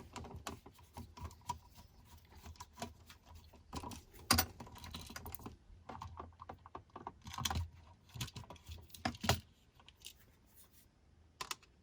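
Small clicks and taps of hands and a screwdriver working on a GFCI receptacle and its wires, with a few sharper knocks about 4, 7½ and 9 seconds in, then nearly quiet.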